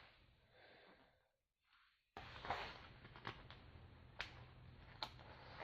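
Near silence at first, then faint handling noise: soft rustling with a few light clicks as the diamond-painting canvas is handled.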